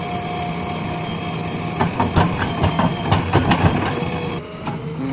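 JCB 3DX backhoe loader's diesel engine running steadily, with a run of sharp metallic clanks about two seconds in that go on for a couple of seconds.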